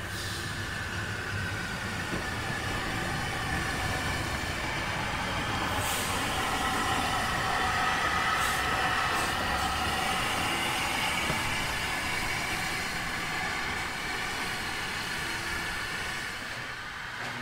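LNWR Coal Tank No. 1054, a small 0-6-2 steam tank engine, running light past at low speed. A high, multi-toned metallic squeal from its wheels on the curving track is loudest as it passes closest, with a few clicks over the rail joints.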